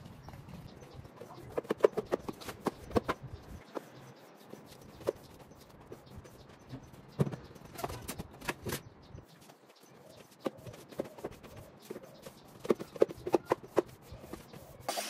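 Scattered knocks and clatters of hard objects being picked up and set down, in irregular clusters with a few louder knocks.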